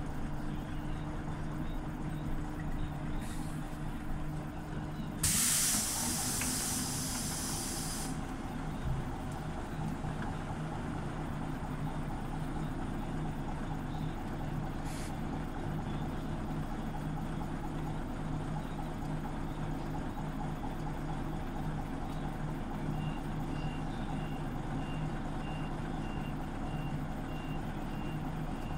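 Scania OmniLink city bus with its engine running steadily. About five seconds in comes a loud hiss of released compressed air from the pneumatic system, lasting about three seconds. Near the end a high beep repeats about twice a second.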